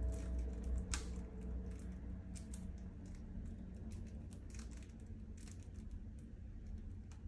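Scattered light clicks and taps of hands handling shrink-wrapped plastic CD cases and crinkled packing paper, at irregular intervals.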